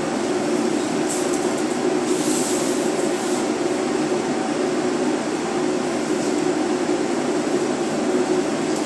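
Ventilation fans in a paint booth running with a steady, even rush of air, with a brief higher hiss about two seconds in.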